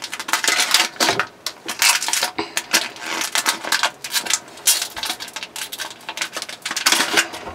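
Foil Pokémon booster pack wrapper crinkling and tearing as it is opened by hand and the cards are pulled out: a dense, irregular run of crackles.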